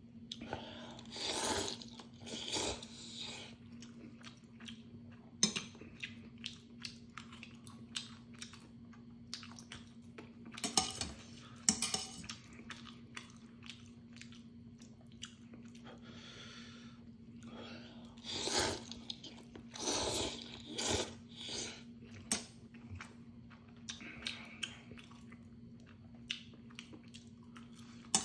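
Neoguri instant ramen noodles being slurped and chewed: several long slurps come in three groups, near the start, around the middle and about two-thirds in, with wet chewing and short mouth clicks between. A faint steady hum runs underneath.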